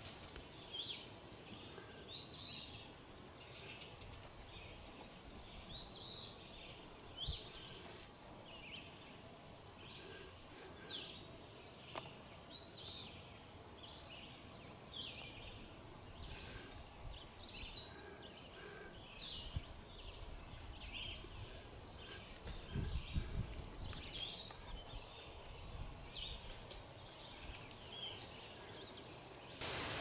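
Faint woodland ambience with birds calling: short high chirps repeating every second or two. A few low rumbles a little past the middle.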